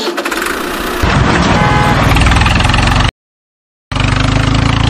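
Diesel tractor engine running steadily with a low, even rumble. It grows louder about a second in, cuts out for nearly a second about three seconds in, then comes back.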